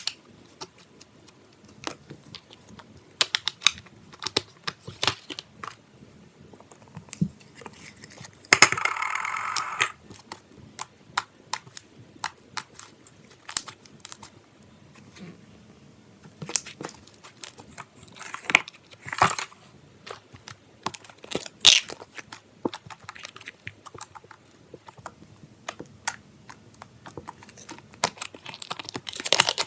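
Slime being squished and poked by hand, making irregular sharp clicks and crackles, with a longer, louder crunching crackle about nine seconds in.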